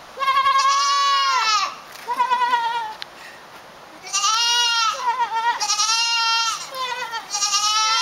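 African pygmy goat bleating loudly and repeatedly, about five drawn-out calls, the first and third over a second long, with short gaps between them.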